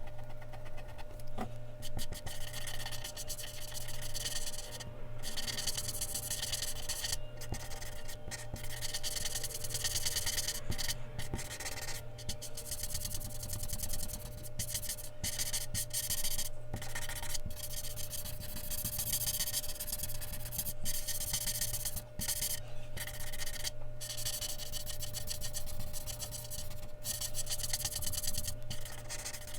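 Mechanical pencil scratching on Bristol paper in rapid shading strokes, running in long stretches broken by brief pauses.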